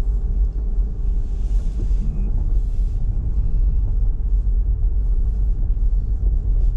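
Steady low rumble of road and running noise inside a Toyota Prius cabin while driving.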